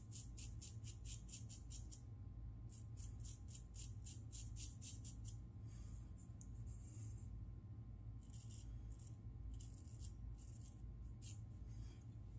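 Parker adjustable shavette razor blade scraping through stubble and lather in quick short strokes, about five a second. The strokes come in two runs near the start, pause, then return in scattered strokes later, over a faint steady low hum.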